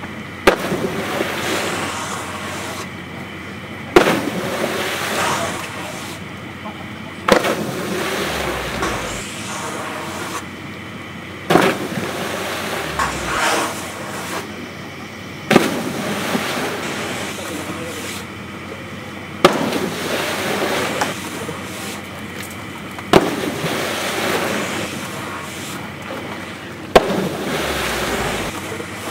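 Snowboarders landing in a water-jump pool one after another: a sharp slap followed by a splashing wash, about every four seconds, with voices in between.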